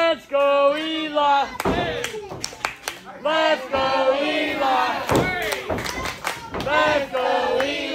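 Crowd at a wrestling show shouting and chanting in short loud phrases, with sharp thumps scattered throughout.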